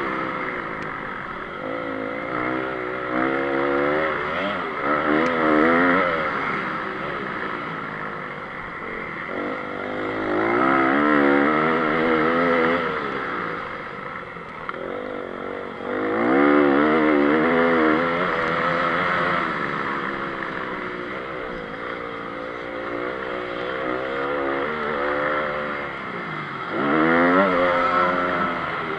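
Honda CRF 250 four-stroke single-cylinder motocross engine heard from on board, revving up hard and climbing in pitch, then easing off, in repeated surges as the rider accelerates through the gears and backs off for corners.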